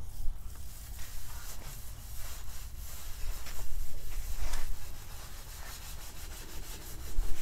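Brown Scotch-Brite pad scrubbing a corroded metal mast wet with foaming acid etching cleaner, in quick, uneven back-and-forth strokes.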